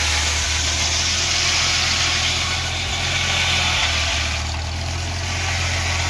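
Foley Belsaw M14 circular sawmill, driven by a tractor's PTO, sawing through a log, with the tractor engine running steadily under the hiss of the cut. The hiss eases for a moment about four and a half seconds in.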